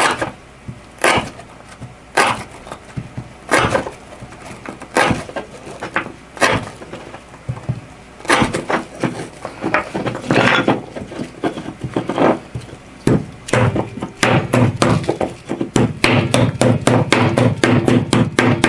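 S30V stainless knife blade chopping through rope onto a beef rib bone, one sharp chop about every second or so, then quicker, closer-spaced chops over the last several seconds, as an edge-stability test.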